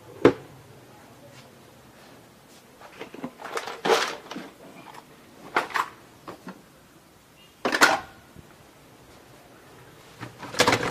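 Scattered knocks, clunks and clatter of objects being handled and set down on a work surface. There are about five separate bumps, with a burst of rustling clatter about four seconds in and the sharpest knock about eight seconds in.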